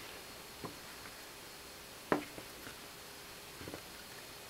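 Picture cubes being rolled over by hand to a new face, giving a few soft clacks as the blocks knock against each other. A small knock comes early, the sharpest about halfway, and a short cluster near the end.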